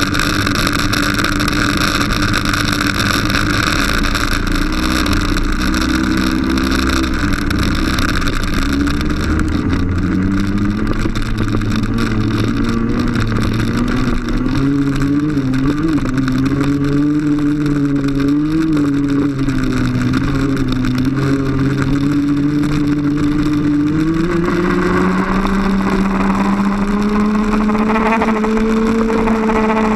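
Onboard sound of a 125cc TaG kart's two-stroke engine. It runs at low revs at first, picks up about a third of the way in, varies with the throttle, then climbs again near the end and holds at higher revs.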